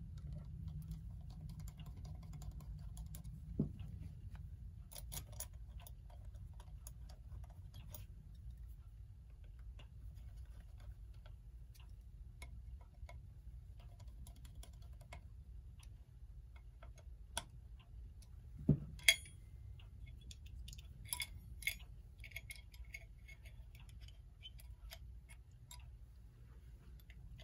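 Small clicks and taps of metal clock parts and tools being handled as a Telechron electric clock movement is put back together, with two sharper knocks, one a few seconds in and one past the middle. A steady low hum runs underneath.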